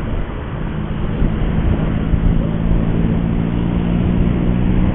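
Riding a motorcycle in heavy traffic: a steady rush of road and wind noise, with an engine drone setting in about a second in and holding a steady pitch.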